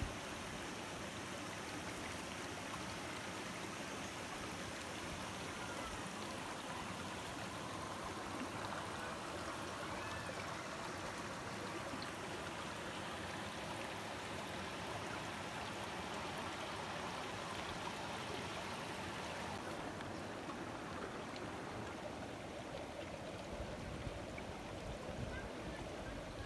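Spring water running steadily down a small cascade, an even, unbroken rush of flowing water.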